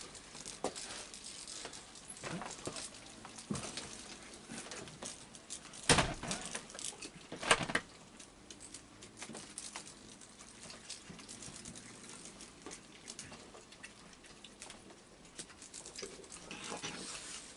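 Raccoons feeding on a wooden deck: chewing and many small clicks and light pattering on the boards, with two louder sudden noises about six and seven and a half seconds in.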